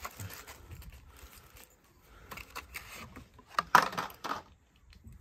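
Clear plastic packet of small metal door fittings being handled: crinkling plastic with light metallic clicks and clinks, and a louder rustle and scrape about three and a half seconds in.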